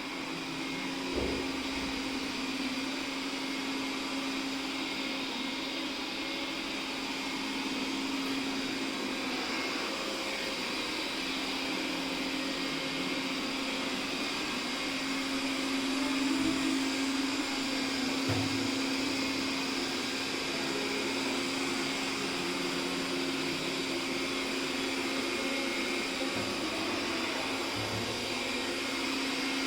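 Robot vacuum cleaner running steadily, a whirring hum with a steady motor tone, and a few brief low knocks.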